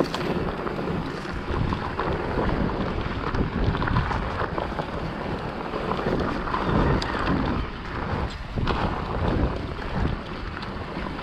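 Wind rushing over the action camera's microphone as a mountain bike rolls down a dirt singletrack, with a steady clatter of knocks and rattles from the bike over the rough ground.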